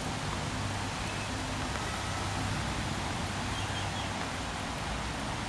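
Steady hiss of rain falling on wet ground and foliage.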